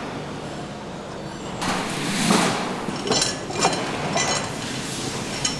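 Steady factory hall hum, then a run of metal clanks and scrapes, loudest about two seconds in, as a metal carrier frame holding a bare V8 engine block is slid into a processing cabinet.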